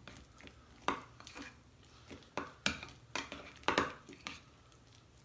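A metal spoon stirring thick cream filling in a glass bowl, clinking against the glass in about seven irregular taps.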